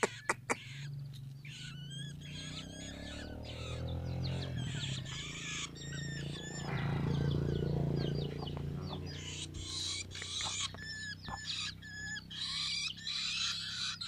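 Young long-tailed shrikes calling in their cage: many short, high, hooked chirps and raspy calls, thickest near the end. A few sharp taps come right at the start, and a low rumble swells in the middle and fades.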